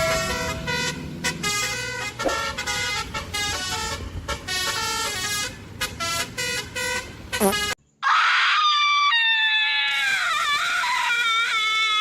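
Multi-tone 'telolet' bus air horn playing a rapid melody of short, changing notes. It cuts off suddenly almost eight seconds in and, after a brief gap, another pitched sound with sliding, wavering notes takes over.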